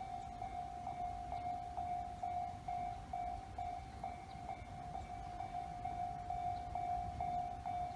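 Japanese railway level-crossing warning bell ringing steadily, an electronic ding repeating about twice a second over a low rumble.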